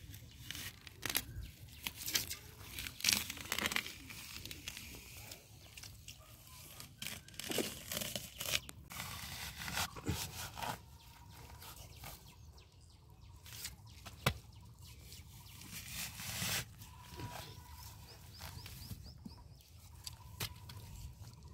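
A metal digging bar scraping and cutting into wet, grassy mud, tearing turf and loosening clods in irregular scrapes and knocks.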